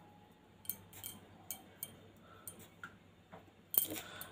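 Faint, scattered metallic ticks and light clicks of steel kitchen utensils, then a louder clatter near the end.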